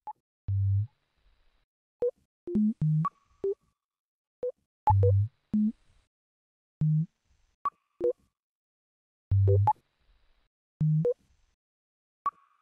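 Minimal electronic music: short synthesizer beeps at several pitches, a low note, middle notes and higher blips, each cut off sharply with silent gaps between. The pattern repeats about every four and a half seconds.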